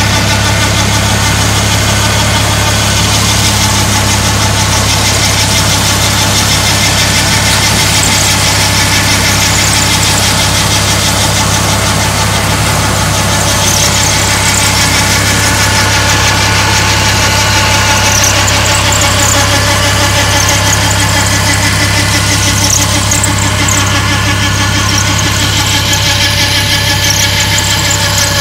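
Farm tractor engine running steadily, together with the steady whir of the harvest machinery working the straw beside it. The sound is loud and unbroken, a low hum with a high whine over it.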